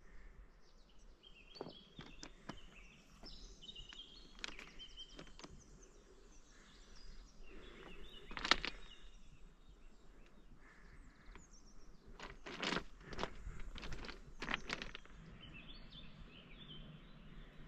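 Small birds singing in short chirping phrases, with scattered footsteps; the loudest step or knock falls about halfway through, and a run of several steps comes near the end.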